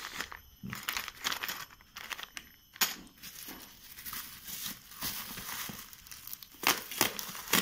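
Plastic bubble wrap crinkling and rustling as it is peeled off a cardboard router box by hand, with sharp crackles. The rustle is steady through the middle and the crackles are loudest near the end.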